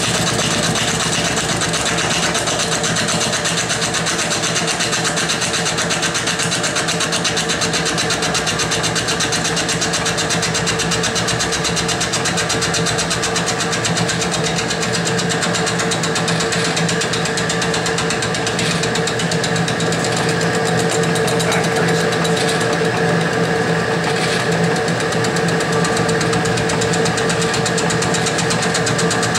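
Milling machine running with its fly cutter spinning: a steady motor hum over a fast, even rattle.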